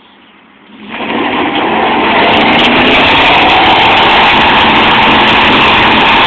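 Pickup truck doing a burnout: the engine is revved hard and the rear tires spin on the pavement. It comes up about a second in and holds loud and steady.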